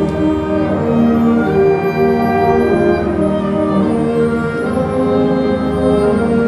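Orchestral music with bowed strings, sustained chords changing every second or so.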